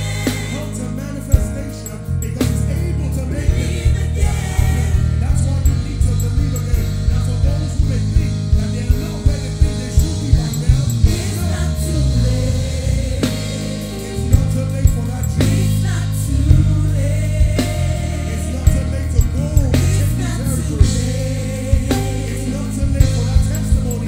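Live gospel band playing: a drum kit hits a steady beat and an electric bass guitar plays a moving line, with singing voices over them.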